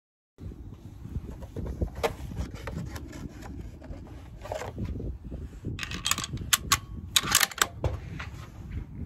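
Handling noise from a Winchester Model 70 rifle on a shooting rest: rubbing and scattered clicks, then a quick run of sharp clicks about six to seven and a half seconds in, over a steady low rumble.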